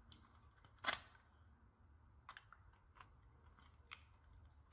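Pliers crimping the thin wall of an aluminum drink can: one sharp metallic click about a second in, then a few fainter clicks as the rim is twisted.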